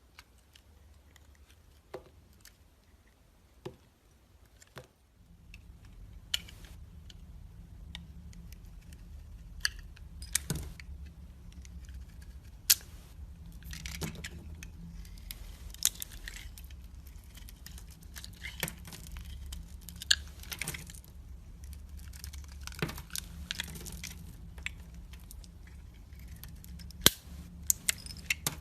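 A knife cutting and chopping bar soap: irregular crisp crunches and sharp taps, with a steady low hum coming in about five seconds in.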